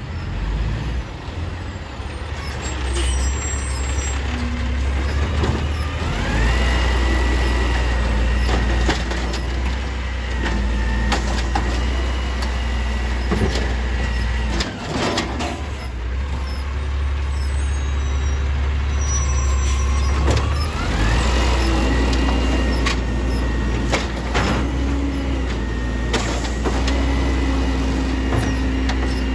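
Automated side-loader garbage truck's diesel engine running. Twice it revs up, with a rising whine that holds steady for several seconds as the hydraulics work the side arm to pick up a cart. Air-brake hisses and a few clanks are scattered through.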